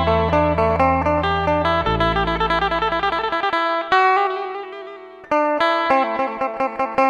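Music led by a plucked string instrument playing quick runs of picked notes over a deep bass line; about halfway through the bass drops out and the picking thins to separate notes over a held low note.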